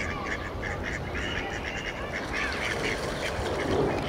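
Mallards calling in a quick, continual run of short quacks, with splashing on the water near the end.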